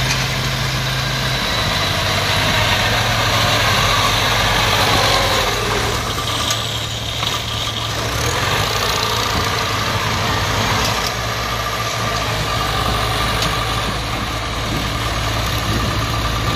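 Engines of homemade tracked dump carriers running steadily as the machines drive, one passing close by. The low engine note drops slightly about a second in.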